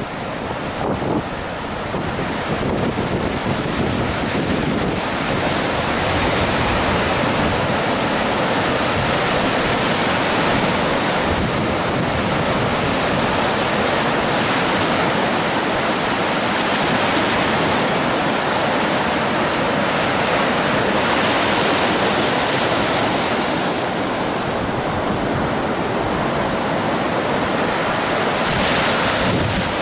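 Baltic Sea surf breaking and washing up a sandy beach, a continuous rush of waves swelling and easing, with wind buffeting the microphone.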